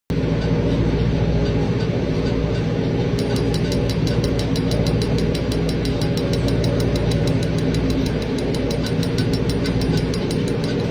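A machine running with a steady low hum. About three seconds in, a fast, even mechanical clicking of roughly seven ticks a second starts up and keeps going: a strange ratcheting noise.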